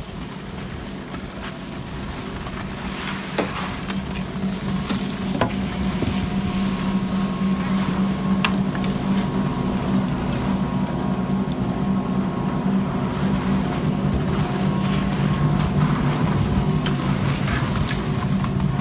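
Detachable chairlift terminal machinery running: a steady hum with a held tone that grows louder over the first few seconds, broken by a few sharp clicks and clunks as the chair rolls through the terminal.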